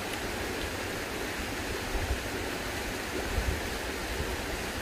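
Steady rush of a flowing mountain stream, with a couple of low thumps on the microphone midway.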